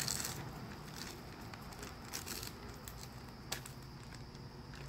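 Plastic bag of bird feed crinkling and rustling in a few short bursts as it is handled, with a click about three and a half seconds in.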